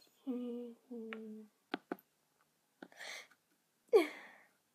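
A girl's voice making non-word sounds: two short hummed syllables, then a breathy, falling exclamation about four seconds in. A few light clicks come in between.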